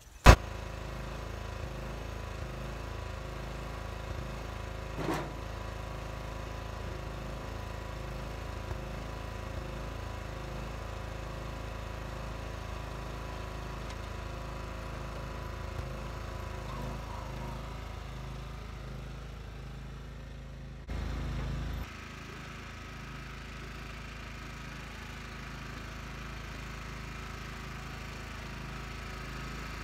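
Riding lawn tractor's engine running at a steady speed, after a single sharp click at the very start, with a brief louder low stretch about three-quarters of the way through.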